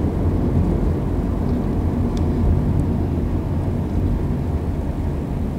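Car driving along a road: a steady low rumble of engine and tyre noise heard from inside the car.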